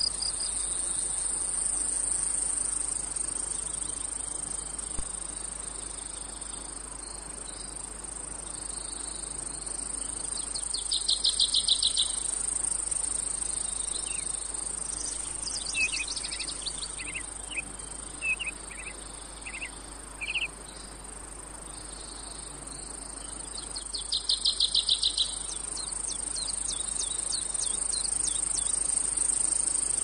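Cicadas and other insects: a steady high-pitched drone, with a fast pulsing trill that swells and fades twice, around 11 and 24 seconds in, and a scatter of short chirps between them.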